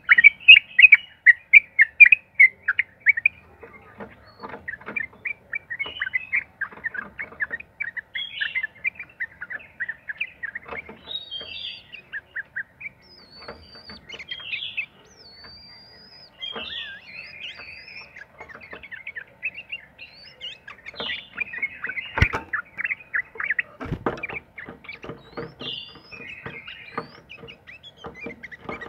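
Yellow-vented bulbul (trucuk) singing long, rapid chattering runs of bubbly notes, loudest at the start and again past the middle, with occasional higher whistled notes and scattered soft knocks.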